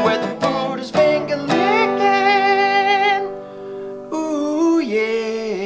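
Closing theme music: a few quick acoustic guitar strums, then a voice singing long held notes with vibrato.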